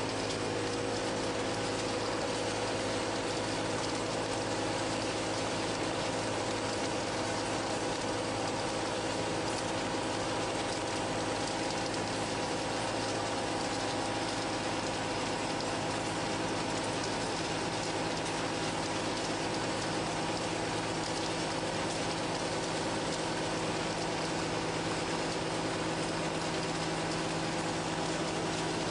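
Fermat WFT 13 CNC table-type horizontal boring mill taking a heavy milling cut, 40 by 50 mm. The spindle drive and cutter run steadily, a constant mechanical noise with several humming tones that does not change.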